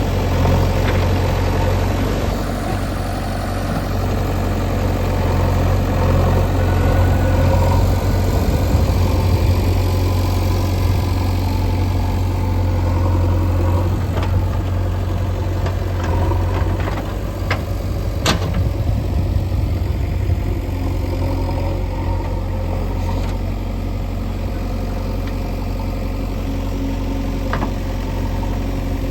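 Diesel engine of a backhoe loader running steadily with a low hum, broken by a few sharp knocks, the loudest a little past the middle.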